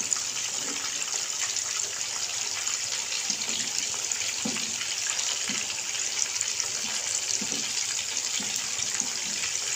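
Fish steaks frying in hot oil in a pan, the second side cooking: a steady sizzle.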